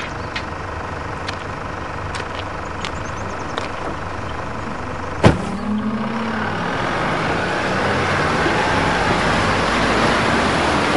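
A vehicle driving submerged through a river: a low engine rumble with churning water that grows steadily louder from about six seconds in as it comes up, and a single sharp knock a little after five seconds.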